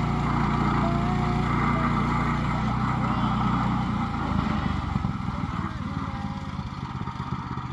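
An engine idling steadily; its low hum drops away about four seconds in and the sound gets a little quieter.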